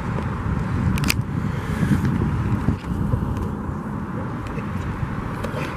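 Steady low rumble of outdoor background noise, with one sharp click about a second in.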